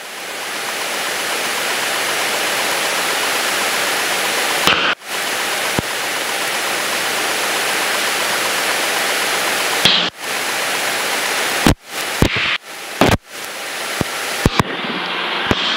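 Steady rushing hiss of a light aircraft in flight, cockpit and airflow noise as picked up on the cockpit intercom audio. It breaks off abruptly for a moment about five seconds in, again about ten seconds in, and several times in quick succession near the end.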